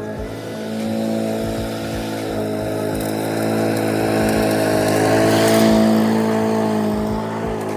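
2016 Honda twin-blade walk-behind lawn mower's small engine running steadily at full speed while mowing, growing louder about five to six seconds in.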